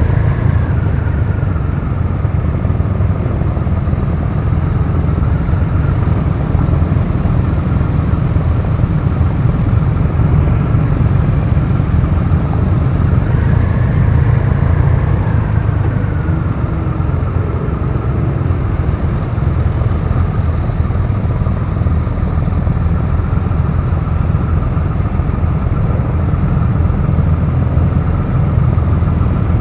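Triumph Rocket 3 Classic's big three-cylinder engine idling with a steady, deep rumble, other motorcycles ticking over close by. A brief rising and falling whine comes in about halfway through.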